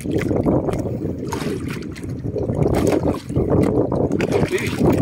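Wind buffeting the microphone over water sloshing against the hull of a small outrigger boat, a steady rushing noise.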